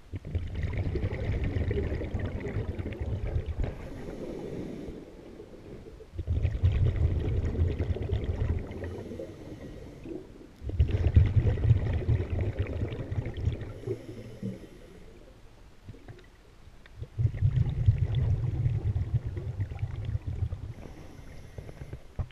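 Scuba diver breathing through a regulator: exhaled bubbles rush and gurgle past the camera four times, each for two to four seconds, with quieter gaps between breaths.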